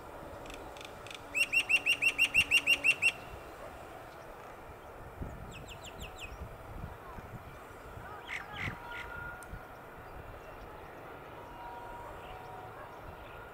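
A bird calls a fast run of about a dozen sharp notes, then a few shorter calls, over the faint, steady rumble of a diesel train far off.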